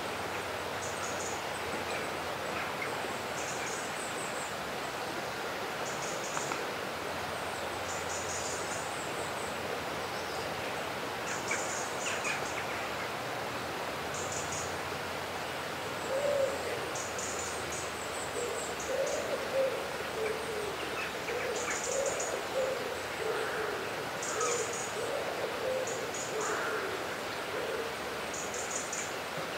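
Outdoor birdsong over a steady background hiss: short, high, thin chirps every second or two throughout, joined about halfway in by repeated lower calls that waver in pitch.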